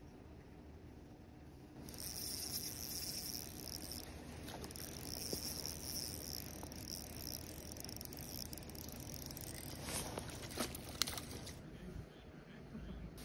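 Small spinning reel being cranked on a retrieve: a steady high-pitched whir starts about two seconds in and runs until near the end, with a few sharp clicks about ten to eleven seconds in.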